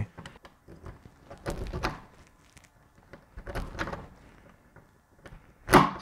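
Impact punch-down tool handled and pressed onto a Cat6 patch panel's wire terminals, with soft rustling and knocks, then one sharp loud snap near the end as the spring-loaded tool fires, seating a wire and cutting off its excess.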